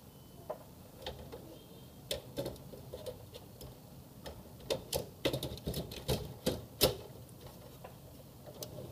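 Irregular sharp clicks and taps of small hard parts being handled during work on a laser printer, coming thickest about halfway through, over a low steady hum.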